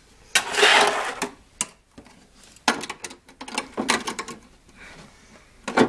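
Fingerboard rolling on a small homemade ramp for about a second, then a string of sharp clacks and knocks as the board's wheels, trucks and tail hit the ramp and ledge.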